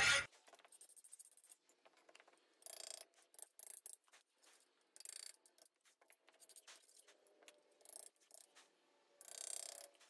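Faint hand-tool work on the soldered steel lock plate resting on an anvil: three short scraping strokes, with scattered small clicks and taps in between.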